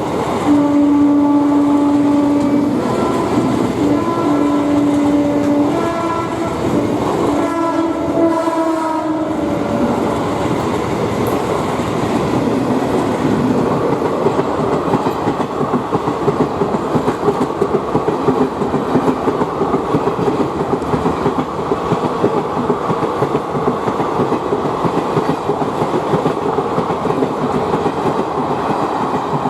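Diesel-hauled passenger train passing close by. Its horn sounds in several blasts that change pitch over roughly the first nine seconds, then the coaches roll past with steady, fast wheel clatter over the rail joints.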